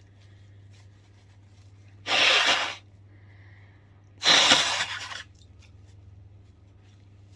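A woman sneezing twice, about two seconds apart; the sneezes are brought on by sniffed pepper. The second sneeze starts sharper and is the louder of the two.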